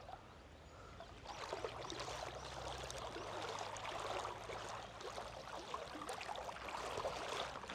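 Shallow river water faintly trickling and swishing.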